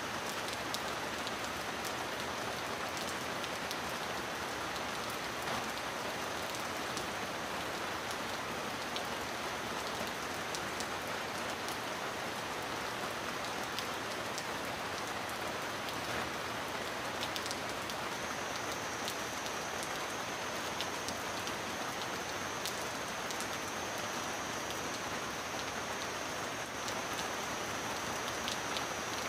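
Steady heavy rain falling on a metal roof, a constant hiss with scattered sharp ticks of single drops.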